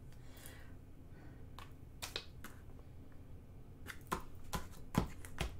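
Scattered soft taps and clicks of hands and a pen on a paper diamond painting canvas taped with painter's tape, with a couple of firmer taps near the end.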